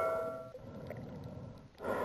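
The fading tail of a bell-like metallic ding, cut off abruptly about half a second in. Faint hiss follows, and another ringing sound begins near the end.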